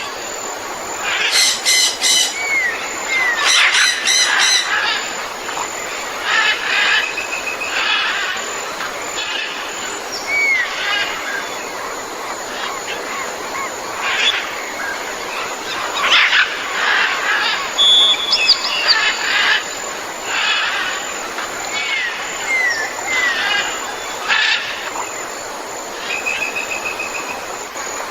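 Tropical jungle ambience: many birds calling and chirping, with short rising whistles and rapid stacked chirps coming every second or two over a steady background hiss.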